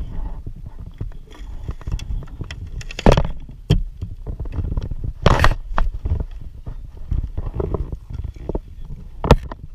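Knocks, clunks and scrapes of gear handled on a plastic sit-on-top kayak as a landed largemouth bass is held on a lip gripper and a plastic measuring board is set out, over a steady low rumble. The loudest knocks come about 3 and 5 seconds in, with another near the end.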